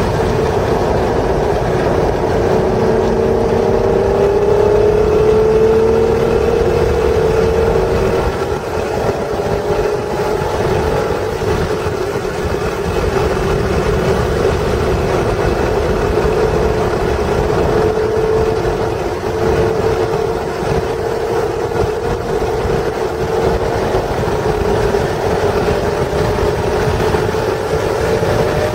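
Acura NSX's stock 3.0-litre V6 heard from inside the cabin at racing speed, over steady road and tyre noise. The engine note climbs under power, falls away about eight seconds in as the car lifts and brakes for a corner, then climbs steadily again through the second half under full throttle.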